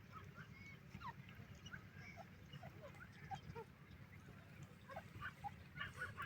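Partridges (Irani teetar) giving many soft, short chirps and peeps, scattered and overlapping, over a faint steady low hum.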